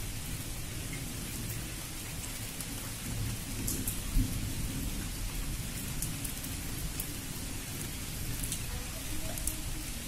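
Steady rain falling, with a low rumble of thunder beneath it and scattered fine drop ticks. A single sharp, loud knock stands out about four seconds in.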